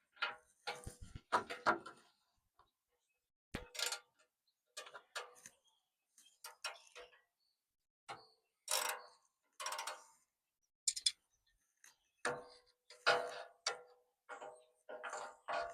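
Hand tools working the bumper mounting bolts: short, irregular bursts of ratchet-wrench clicking and metal clinks, with brief pauses between them.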